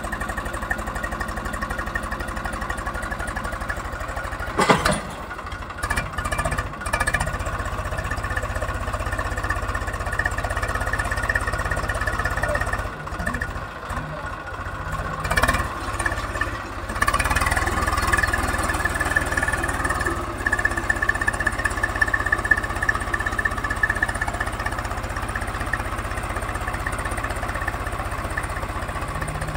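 Swaraj 735 FE tractor's three-cylinder diesel engine running under heavy load as it strains to pull a sand-laden trolley, rear wheels dug into sand and front end lifting. A sharp knock about five seconds in, and the engine gets louder a little past halfway.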